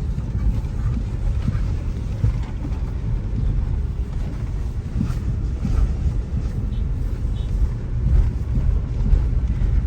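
Car driving along, a steady low rumble of engine and tyre noise heard from inside the cabin.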